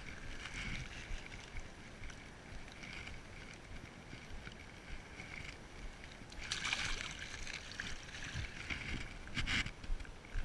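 Shallow river water sloshing and splashing as a caught fish is lowered into it by hand and released, with a louder splash about six and a half seconds in and a short one near the end, over a faint steady hiss.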